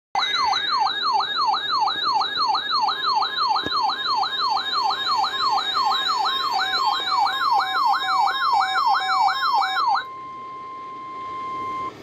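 Weather alert radios going off: an electronic siren warbling up and down about two and a half times a second, together with the steady 1050 Hz NOAA Weather Radio alert tone. The siren stops about ten seconds in and the alert tone carries on alone for two more seconds, signalling a tone-activated weekly test.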